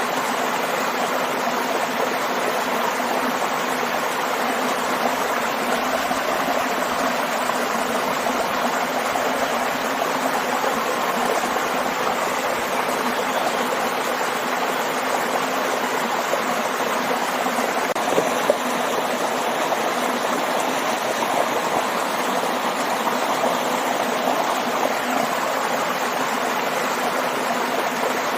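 Small waterfall and stream: water spilling and rushing in a steady, unbroken wash.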